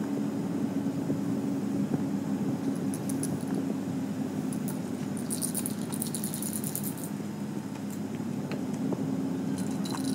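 Steady low mechanical hum, with a spell of fast, fine metallic rattling for about a second and a half midway through.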